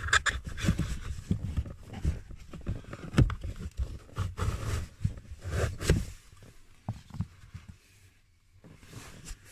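Pleated cabin air filter being slid out of its plastic housing by hand, giving irregular scraping and rustling. The handling is busiest over the first six seconds and dies down to a few faint scuffs near the end.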